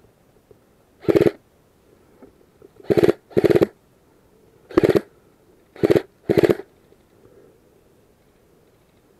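An airsoft rifle firing six short full-auto bursts close to the microphone, two of them in quick pairs.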